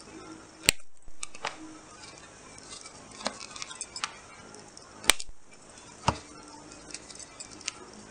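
Handheld single-hole paper punch biting through a paper lacing-board sheet: two sharp snaps, about a second in and about five seconds in, with lighter clicks of the punch and paper rustling between.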